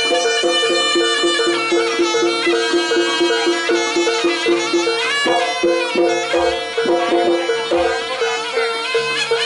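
Live jaranan music from a traditional East Javanese ensemble: a wavering high melody over a steadily repeating two-note figure, with two low drum or gong strokes about two-thirds of the way through.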